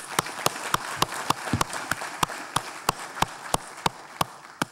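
Audience applauding, with one person clapping loudly close to the microphone about three claps a second; the applause dies away near the end.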